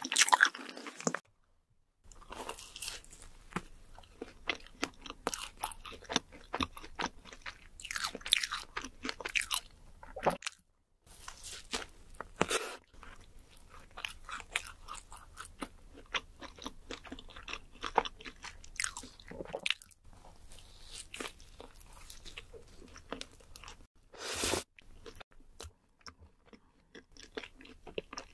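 Close-miked eating sounds: a glazed donut being bitten into and chewed, with many small wet mouth clicks and smacks. The sound drops out briefly about a second in.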